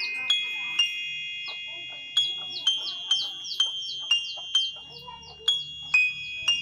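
Slow melody played on a phone keyboard app, layered piano, strings and flute voices: high held notes, a new note about every half second, with a short pause about a second in.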